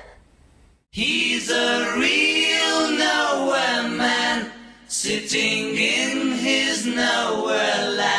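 Voices singing without accompaniment in two long, sustained phrases. The singing comes in about a second in after a moment of near silence, with a brief break midway.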